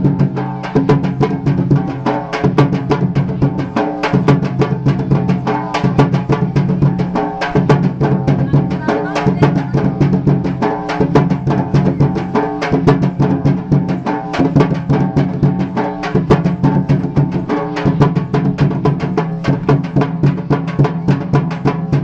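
Dhimsa tribal dance music: drums beating a fast, dense, even rhythm over a steady held melody.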